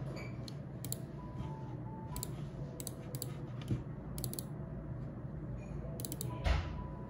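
Computer keyboard keys clicking as someone types, in short irregular runs of keystrokes.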